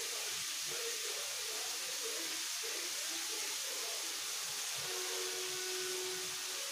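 Crushed bitter gourd and onion frying in mustard oil in a steel kadhai over a gas flame: a steady, even sizzle.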